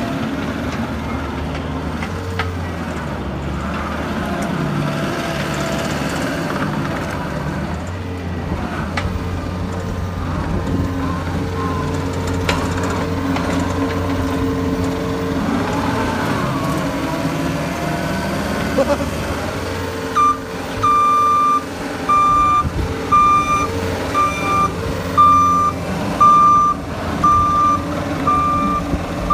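John Deere 333E track loader's 100 hp turbocharged diesel engine running under work, its pitch shifting with load. About two-thirds of the way in, its backup alarm starts beeping steadily about once a second as the machine reverses.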